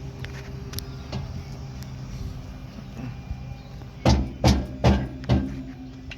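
Four loud knocks in quick succession, a little under half a second apart, over a steady low hum.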